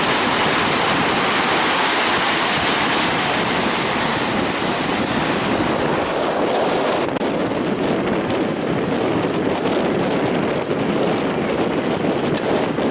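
Heavy sea surf breaking and washing in strong wind, with wind buffeting the microphone. The loud hiss of breaking water eases after about six seconds into a lower, gusting rush.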